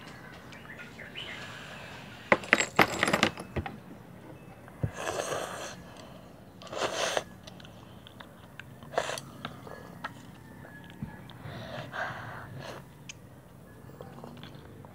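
Wooden chopsticks clicking and scraping against a plastic bowl in a quick cluster early on, then noodles slurped in a few short, breathy bursts.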